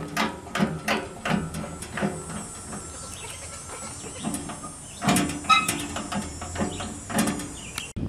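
Child's pedal tractor clicking and rattling as it is steered and moved, in quick runs of knocks for the first two seconds and again from about five seconds in, quieter in between.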